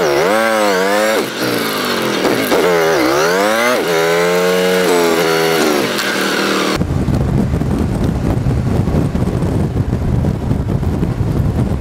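Motorcycle engine revving, its pitch rising and falling again and again under the throttle. About seven seconds in it cuts abruptly to loud wind buffeting on the microphone over the rumble of the moving bike.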